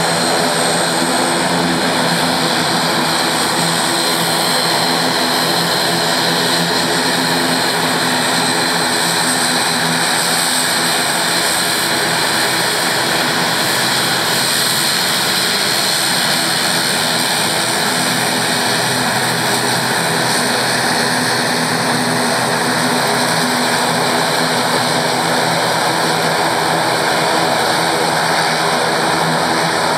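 ATR 72-600's Pratt & Whitney PW127-series turboprop engines running at low power as the airliner taxis past close by: a steady propeller drone with a high-pitched turbine whine over it.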